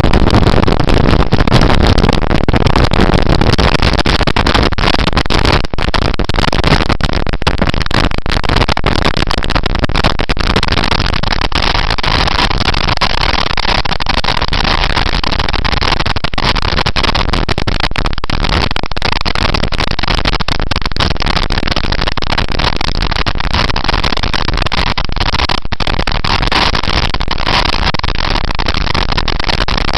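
Heavy wind rush buffeting the microphone of a camera riding on a moving motorcycle, mixed with the bike's engine and road noise, steady throughout and a little louder in the first few seconds.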